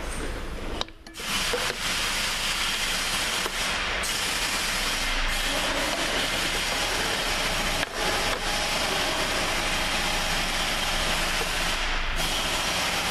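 Steady hissing background noise with no clear knocks or tones. It drops out briefly about a second in.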